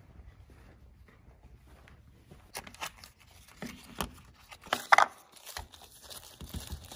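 A small cardboard product box being opened by hand: scrapes, clicks and paper rustling start about two and a half seconds in, with the loudest scrape about five seconds in and more handling near the end.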